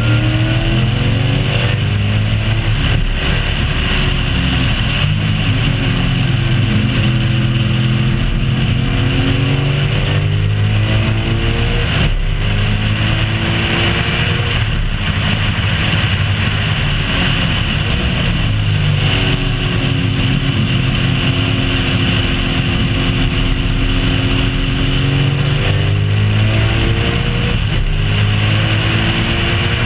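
Race car engine at speed on a track lap, its pitch climbing and falling again and again as it accelerates and slows, over steady wind and road noise at the bonnet-mounted camera.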